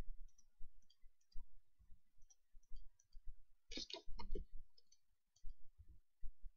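Computer mouse scroll wheel ticking in small irregular notches, with a louder cluster of clicks about four seconds in from a right-click, over soft low bumps.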